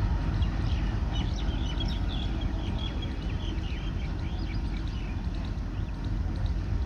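ALCO diesel locomotive engine running with a steady low chugging throb. Short high chirps sound over it for a few seconds in the middle.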